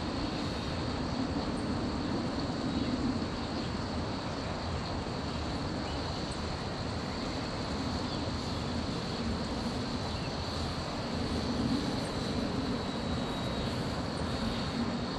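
Homemade radio-controlled model seaplane flying overhead: its motor and propeller give a steady high whine over a lower drone that swells and eases a little.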